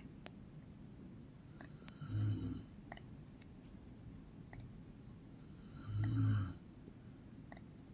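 A woman snoring in her sleep: two snores about four seconds apart, each under a second long, with a low rumble and a breathy hiss.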